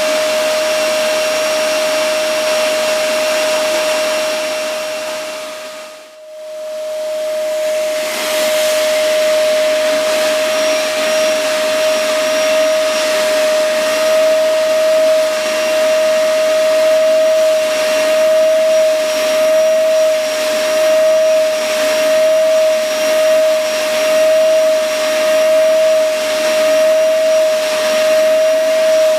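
Vacuum cleaner running with a steady whine over its rush of air. About six seconds in the sound fades briefly and comes back. Later it swells and falls roughly once a second as the suction is worked over a cat's fur.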